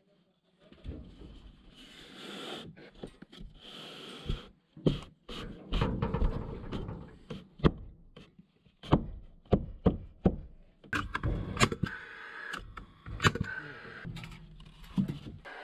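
Irregular knocks and thuds of wood-fibre panels and timber being handled and fitted against a wooden wall frame, some sharp and loud.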